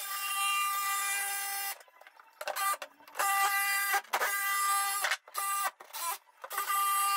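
Cordless jigsaw cutting through a plywood deck, its motor whining at a steady pitch in a string of runs of one to two seconds with short pauses between, stopping and starting as the cut goes round.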